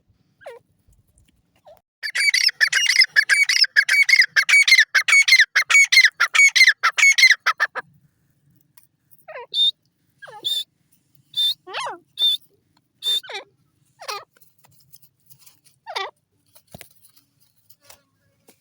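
Grey francolin (dakhni teetar) calling: a fast, shrill run of repeated notes lasting about six seconds, starting about two seconds in. Then come scattered single calls, several of them sliding down in pitch.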